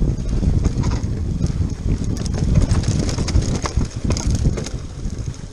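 Mountain bike riding fast down a muddy dirt singletrack, with wind rushing over the microphone as a steady low rumble. The bike gives irregular sharp knocks and rattles as it runs over roots and rocks.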